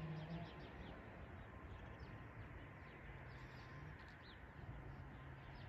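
Faint outdoor ambience: scattered short bird chirps over a low steady hum.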